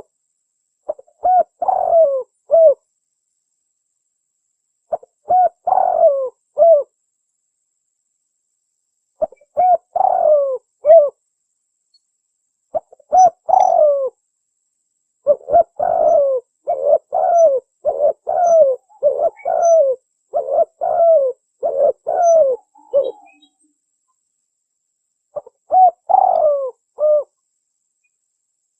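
Spotted dove cooing. It gives short multi-note coo phrases in groups with silent pauses between them, and a faster, unbroken run of phrases in the middle.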